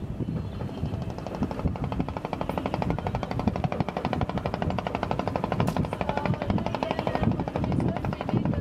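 Rapid, even mechanical clatter, many knocks a second, over an uneven low rumble: boat machinery running.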